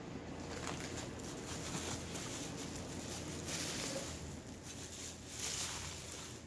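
Packing material rustling and crackling as it is handled and pulled off a ceramic planter, with a busier stretch about three and a half to five and a half seconds in.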